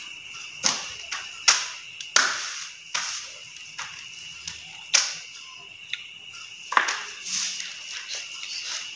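Close-up eating noises from someone eating fried rice by hand: about six sharp mouth sounds spread through the stretch. A steady high cricket trill runs underneath.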